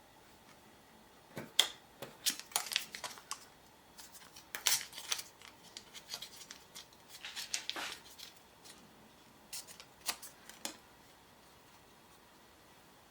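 Handling noises from a lens-protector installation: scattered small clicks and taps with brief crinkling and tearing rustles of packaging, in irregular bursts over about ten seconds.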